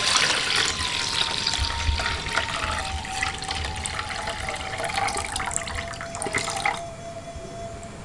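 Liquid sloshing and bubbling in a pot of coconut-milk curry broth, with many small crackles and clicks that fade toward the end.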